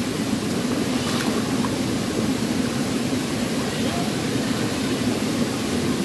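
Steady rush of waterfall water pouring and churning through a rock pool, with a single light click about a second in.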